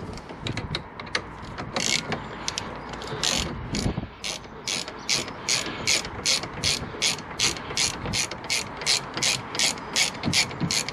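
Ratchet clicking as it winds out the lower slide bolt of a Mini rear brake caliper. The clicks are scattered at first, then settle into a steady run of about three a second for the second half.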